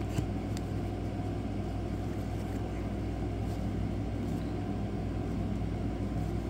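Steady low background hum, with a few faint clicks of baseball cards being handled as a pack is flipped through.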